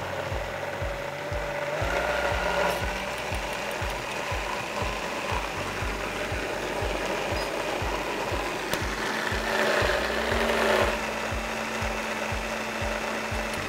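High-speed countertop blender running, puréeing a thick mix of steamed pumpkin and cashew milk. Its motor tone steps up in pitch about two seconds in, and it grows louder and rougher for a moment about ten seconds in. A regular low knocking sounds about three times a second throughout.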